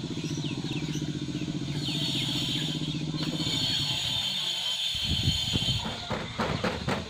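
Motorcycle engine running steadily with a fast, even pulse, giving way about five seconds in to irregular low knocks and clicks.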